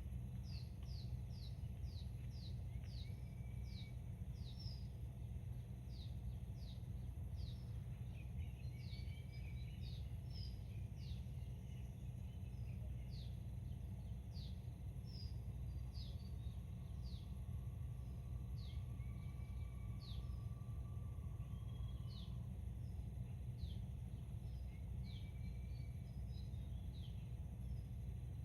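Small birds chirping: many short, high calls that sweep downward in pitch, scattered all through, with a few lower warbled notes, over a steady low rumble.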